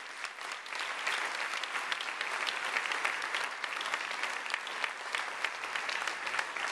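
Audience applauding, many hands clapping, building up in the first second and then holding steady.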